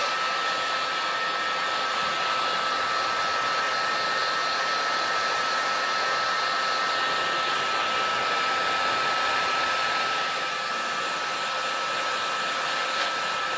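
Electric heat gun blowing steadily with a thin, steady whine, heating heat-shrink tubing so it shrinks onto a chrome mirror stem. The level drops slightly about ten seconds in.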